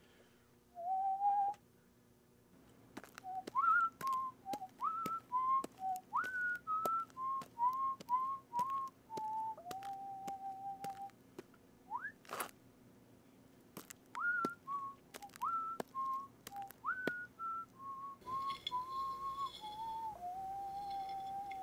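A person whistling a tune: a phrase of short notes that leap up and fall back, ending on a long held lower note, whistled twice over, with a quick upward slide between the two phrases. Light ticks mark the starts of the notes.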